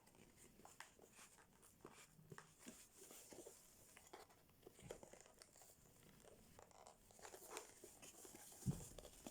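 Faint rustling and light scattered clicks of packaging being handled and opened, with a soft thump near the end.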